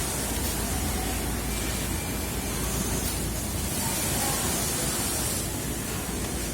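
A steady, even hiss of background noise with no clear rhythm or distinct events.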